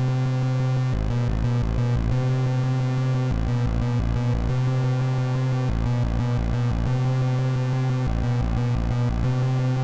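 Electronic music: a synthesizer drone holding one low note with steady overtones, over a stuttering, pulsing bass.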